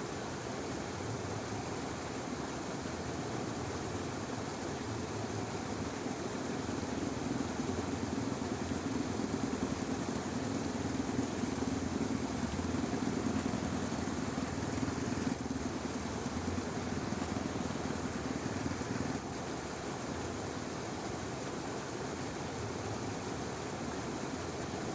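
A distant motor vehicle's low engine hum that swells about six seconds in and drops away after about nineteen seconds, like a vehicle passing, over a steady outdoor background hiss.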